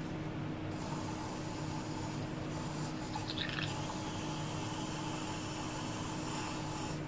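Gravity-feed Badger airbrush spraying at about 20 psi: a steady hiss of air, broken by two short pauses about two and three seconds in, then running on.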